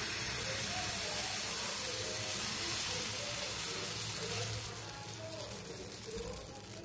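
Wheat-flour and palm-jaggery dosa batter sizzling on a hot tawa as it is poured from a ladle and spread into a round. The hiss eases after about four and a half seconds.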